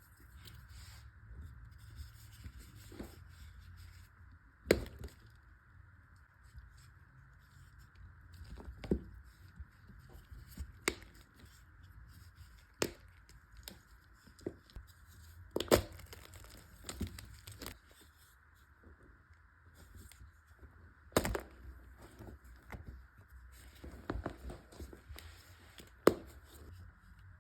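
Blocks of gym chalk mixed with cornstarch and baby oil being crunched and crumbled: irregular sharp cracks and snaps, the loudest about five, sixteen and twenty-one seconds in, with softer crumbling between.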